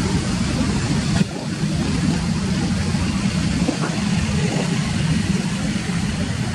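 Jet engines of a twin-engine wide-body airliner running at high power as it rolls down the runway: a steady low rumble with a hiss above it, dipping suddenly a little over a second in.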